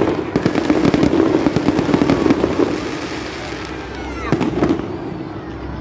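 Aerial fireworks crackling densely as many small pops in quick succession, easing off after about two and a half seconds, with a single louder bang a little after four seconds in.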